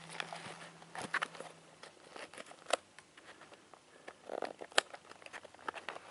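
Scissors and a small cardboard box being handled: scattered sharp clicks and faint scraping as the scissor blade is worked under packing tape on the box.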